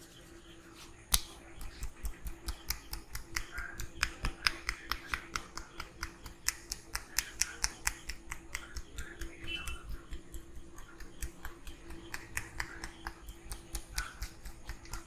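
Rapid rhythmic slaps and claps of a barber's hands during a head massage, about four sharp strikes a second, starting with a loud one about a second in.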